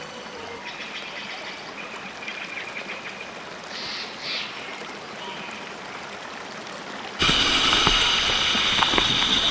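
Running water from a stream trickling steadily. About seven seconds in, it cuts off abruptly and a much louder, steady rushing noise with a few low knocks takes over.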